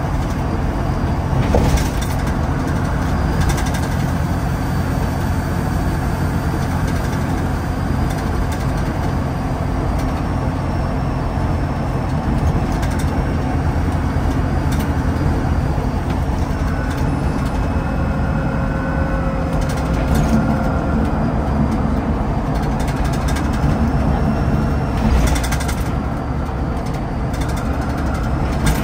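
Scania N94UD OmniDekka double-decker bus under way, heard from inside: a steady engine drone with road noise and a faint whine, broken by a couple of brief knocks from the body.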